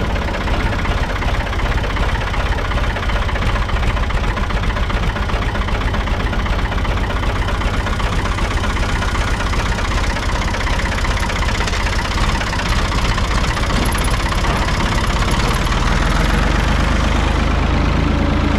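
Tractor engine running steadily, a little louder near the end.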